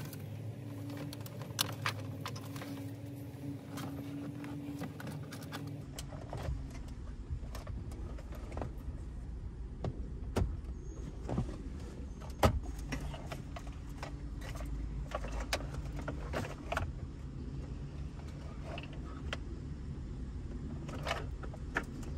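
Plastic dashboard trim panels, connectors and wiring being handled and fitted back into a pickup's dash: scattered clicks, taps and knocks, with a low steady hum underneath.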